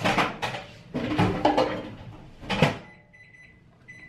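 Knocks and clatter of kitchen items being handled, then, about three seconds in, short electronic beeps from a microwave oven.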